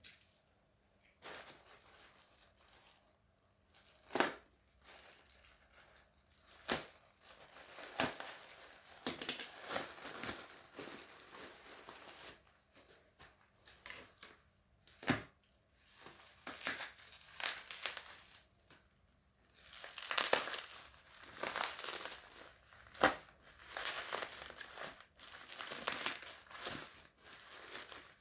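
Hands handling something plastic: irregular crinkling and rustling with many sharp clicks and knocks.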